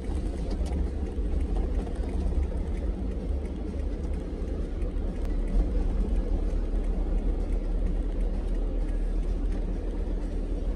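Steady low rumble of a car driving along an open road: tyre and engine noise heard from inside the cabin.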